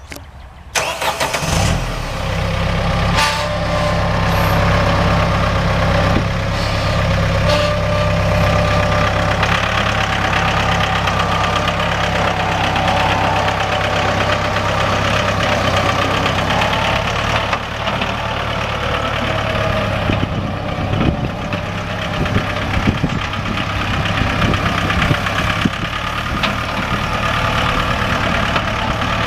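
Mahindra 1533 tractor's diesel engine starting about a second in, then idling steadily.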